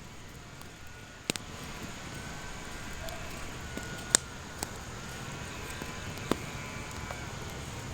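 Steady low hiss with a handful of isolated sharp clicks, about four spread through, and a faint thin wavering tone in the background.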